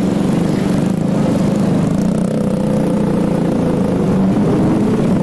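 Motorcycle engine running steadily under way in traffic, with road and wind noise.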